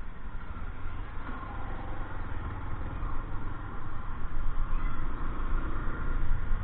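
Steady vehicle engine and road-traffic noise with a low rumble, getting a little louder in the second half.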